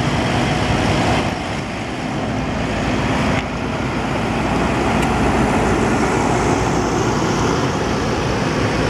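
Big tractor diesel engines running steadily as a Fendt 718 and then a Massey Ferguson drive slowly past close by, with an even engine drone throughout.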